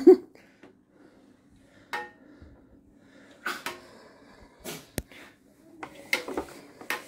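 Scattered clicks and clacks of a Tonka Mighty Crane toy's plastic and steel parts being handled and moved, a wobbly toy, with one sharp click about five seconds in.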